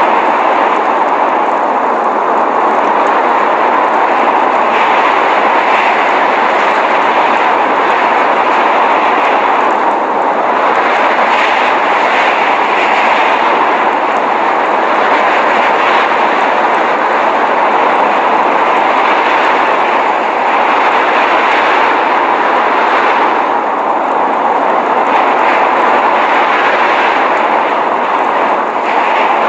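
Steady roar of blizzard wind, with a hiss that swells and eases every few seconds.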